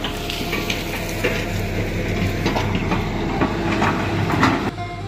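An engine running steadily under irregular rattling and clattering. About four and a half seconds in it cuts off abruptly and music begins.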